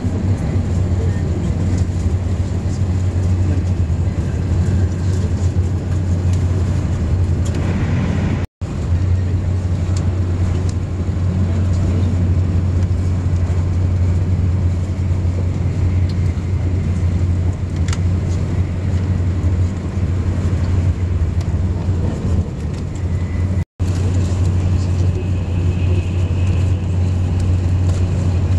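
Steady low rumble and rushing noise of a TGV high-speed train running, heard from inside the carriage. The sound cuts out for an instant twice, once about a third of the way in and once near the end.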